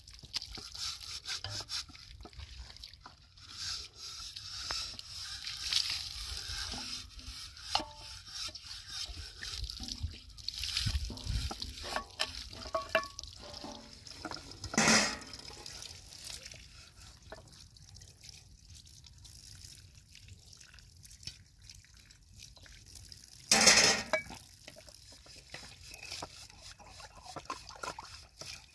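Dishes being washed by hand in water: light splashing, dripping and small knocks of metal pans and utensils, with two brief louder bursts, about halfway through and again some eight seconds later.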